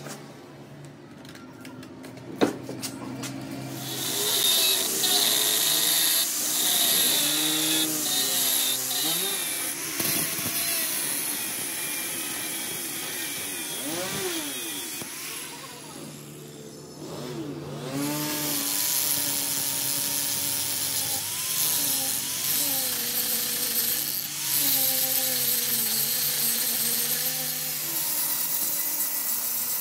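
Handheld angle grinder with an abrasive disc grinding the square end of a repaired steel shaft clamped in a bench vise. The harsh grinding starts about four seconds in, stops briefly about midway and starts again.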